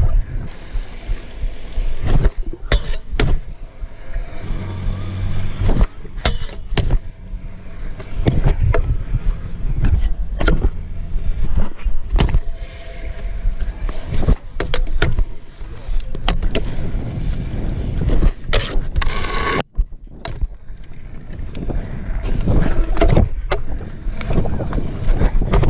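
Stunt scooter rolling over skatepark concrete: a steady wheel rumble broken by many sharp clacks and knocks as the deck and wheels land and strike the ground.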